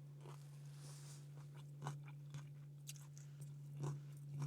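A person chewing a mouthful of food, with a few faint crunches and mouth clicks from about two seconds in, over a steady low hum.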